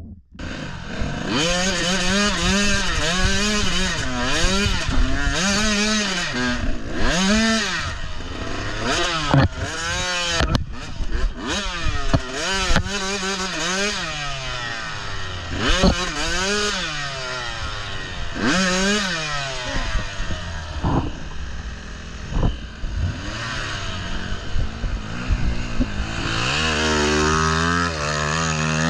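85cc two-stroke dirt bike engine being ridden hard, revving up and down over and over, its pitch rising and falling every second or two, with a few sharp knocks and clatter along the way.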